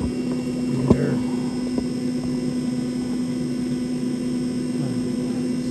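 Pit Boss Copperhead vertical pellet smoker running during start-up: its fan gives a steady, even hum. One sharp click about a second in.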